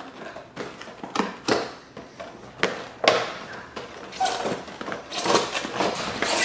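A cardboard product box being opened and handled: irregular knocks, scrapes and rustling as its flaps are bent back and the box is tipped and shaken, busiest in the second half.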